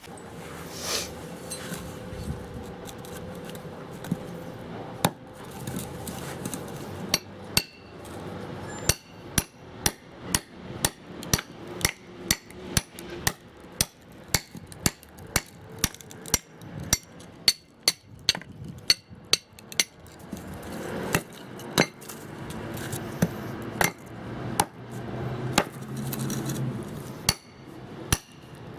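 A series of sharp knocks at about two a second. They begin around seven seconds in and keep a steady rhythm, over a low background.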